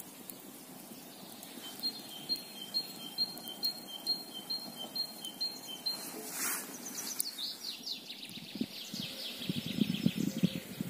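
Wild songbirds singing: a two-note phrase repeated quickly for several seconds, then a fast run of short falling notes. Low rustling starts near the end.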